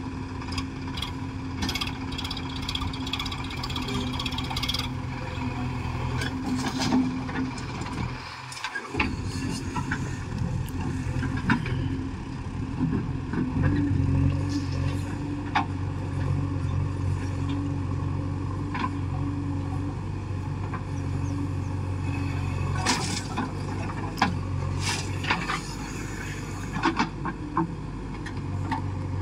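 JCB backhoe loader's diesel engine running under load as the backhoe bucket digs, getting louder about halfway through, with scattered knocks and clanks of the bucket against soil and stones.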